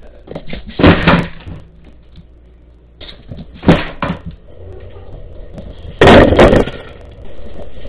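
Loud knocks and clatters from a plastic automatic pet feeder being jostled and bumped by a cat. There are three separate hits, the last and loudest a longer rattle.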